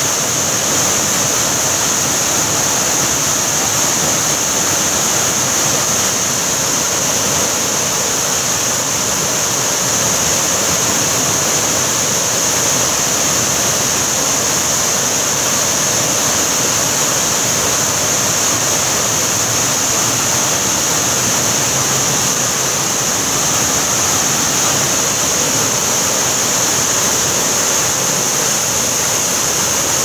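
Waterfall pouring over rocks into a pool: a steady, loud rush of falling water with a bright hiss.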